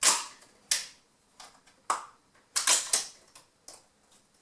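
12-gauge shotgun shells being pushed into the magazine tube of a Mossberg 930 JM Pro. A handful of sharp clacks comes at uneven intervals, with a quick run of three about halfway through.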